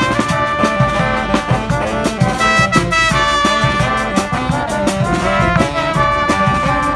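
A brass street band playing live, the horns holding and changing notes over a steady percussion beat.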